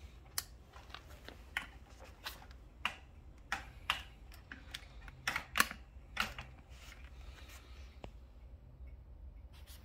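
Irregular light clicks and knocks from handling a folded Brompton bicycle, about a dozen, the loudest a little past the middle, thinning out near the end.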